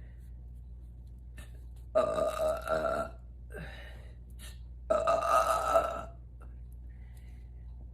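A woman belching twice, loudly, each pitched burp lasting about a second: the first about two seconds in, the second about five seconds in, with a short, softer sound between them.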